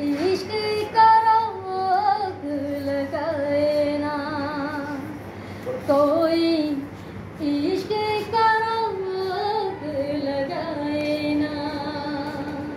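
A woman singing solo without accompaniment, in phrases of a few seconds with long held notes that waver in vibrato.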